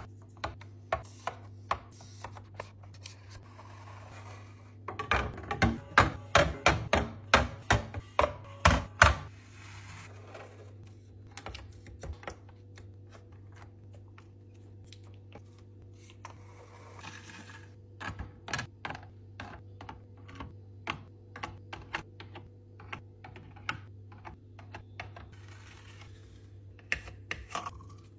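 Rapid clicks and taps of items and containers being handled and set down while restocking a refrigerator. A dense, loud run of clicks comes about five seconds in and lasts a few seconds, then the taps grow sparse over a steady low hum.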